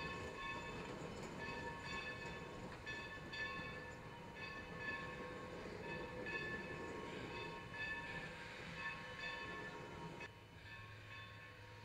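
The bell of steam locomotive Sierra Railway No. 2 ringing in a steady rhythm, about one stroke a second, over the rumble of the moving engine. It drops away sharply about ten seconds in, leaving a low hum.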